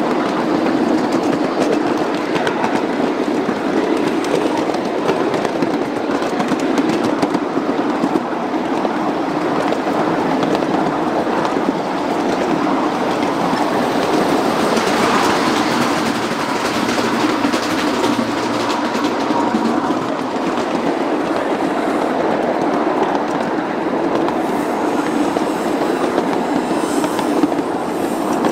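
Riding cars of a ride-on miniature railway rolling along the track: a steady rattling clatter of wheels on the rails. The sound turns brighter about halfway while the train passes through a tunnel.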